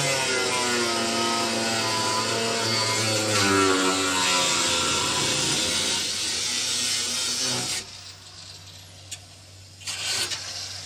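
Angle grinder with a cut-off wheel cutting through the steel sheet metal of a Camaro's rear floor, its motor pitch wavering as the wheel bites. It stops abruptly about eight seconds in.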